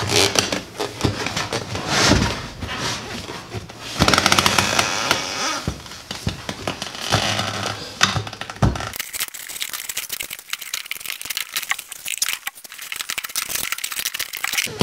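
Steel tire spoons levering a garden tractor tire's bead over its steel rim by hand: metal scraping and clanking against the rim and workbench, with the rubber dragging on the rim. Loud clanks about two, four and eight and a half seconds in, then lighter clicking and scraping in the second half.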